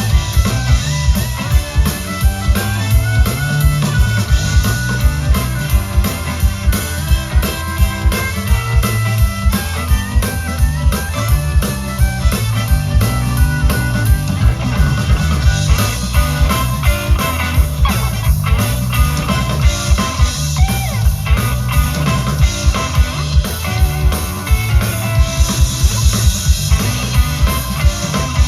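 Rock music with drum kit and guitar, a steady driving beat.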